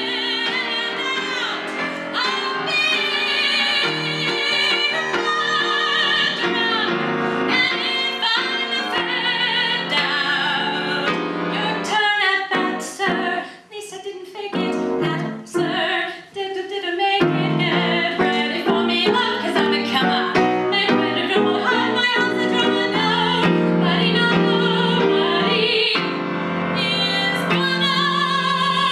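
A woman sings a show tune with strong vibrato into a microphone, accompanied by piano. A little less than halfway through, the voice drops out for a few seconds, leaving short, punchy piano chords, before she comes back in.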